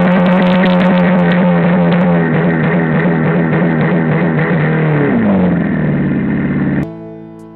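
A car engine held at high revs, a steady droning tone that steps down in pitch about two seconds in and slides lower about five seconds in. Near the end it cuts off abruptly and soft piano music takes over.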